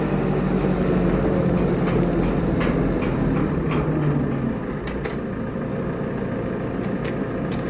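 A motor running steadily, its pitched hum easing off about halfway through, with a few sharp clicks.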